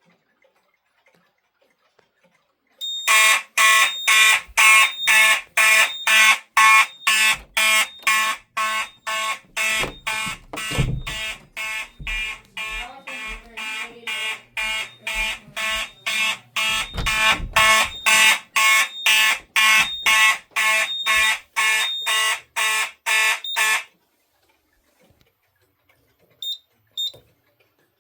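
Fire alarm horn sounding in a fast pulsed pattern, about two blasts a second, for around twenty seconds before cutting off suddenly. Two short high beeps follow near the end.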